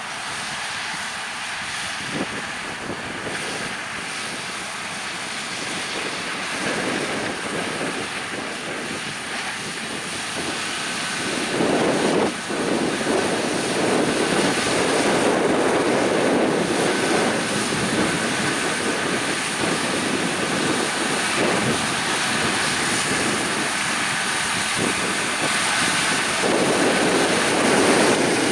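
Harvest machinery running in a field: a steady engine and machine drone that grows louder about midway and again near the end.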